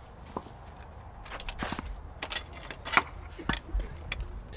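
Tennis ball struck back and forth in a rally on a clay court: a run of sharp racket hits and ball bounces, the loudest about three seconds in.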